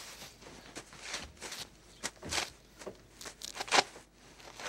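Faint scattered rustling and light taps, like footsteps and handling of objects, ending in one sharp click.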